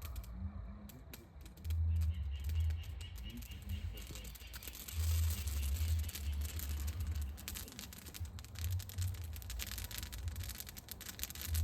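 Small wood fire of kindling crackling and snapping in dense, irregular clicks that thicken from about four seconds in. Wind gusts buffet the microphone with deep rumbles several times.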